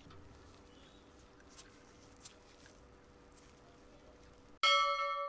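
Faint rustling and a couple of light clicks from gloved hands handling rusty metal parts. Near the end a loud bell-like chime strikes suddenly and rings on, slowly fading.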